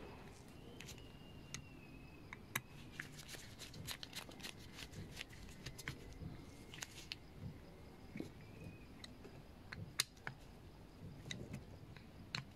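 Small screwdriver tightening the screws of the primer-bulb cover on a small-engine diaphragm carburetor: faint, irregular clicks and light scrapes of the blade turning in the screw heads and the carburetor body being handled.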